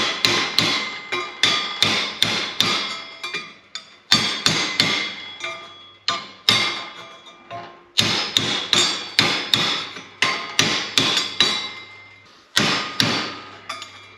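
Hammer blows on a sheet-steel part, about three strikes a second in runs with short pauses, each strike ringing. The part's bend is being hammered back to correct it.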